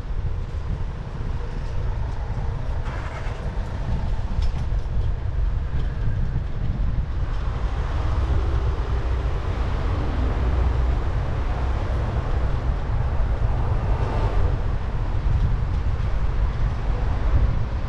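Steady low wind rumble on the microphone of a camera riding along on a bicycle, over the noise of street traffic from passing cars and vans; the traffic noise swells about halfway through.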